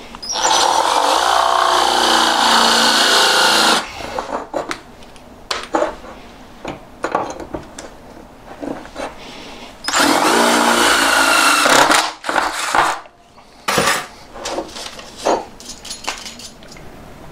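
Electric drill drilling out a hole in a cast-metal part, enlarging it before the hole is tapped for a thread. The drill runs twice, first for about three seconds and then about six seconds later for about two seconds, with clicks and knocks of the part and tools being handled between the two runs.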